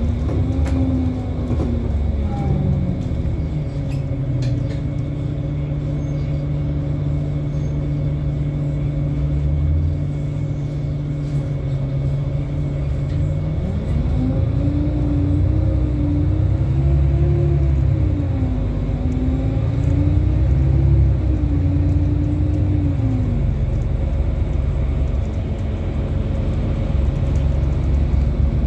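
Inside a moving MAN NL293 Lion's City city bus: the diesel engine's pitch falls, holds steady for about ten seconds, then from about halfway rises and falls three times as the bus accelerates through its gear changes, settling lower near the end. Steady low road and body rumble underneath.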